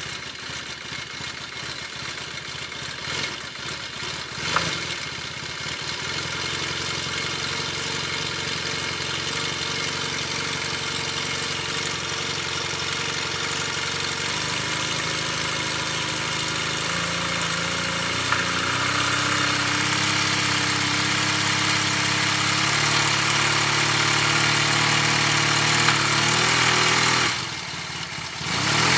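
Yamaha T-Max scooter's parallel-twin engine running, its speed stepping up partway through, with a brief dip near the end. The knock is taken to come from worn crankshaft bearing shells.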